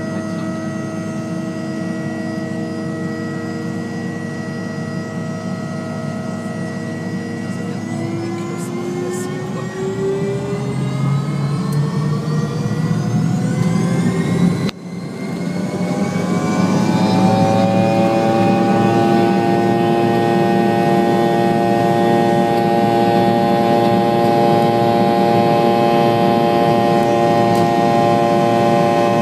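Rolls-Royce Tay turbofans of a Fokker 70 heard from the cabin, running steadily at first, then spooling up for take-off: the whine rises in pitch over several seconds, dips for a moment, and settles into a louder, steady whine at take-off thrust as the take-off roll gets under way.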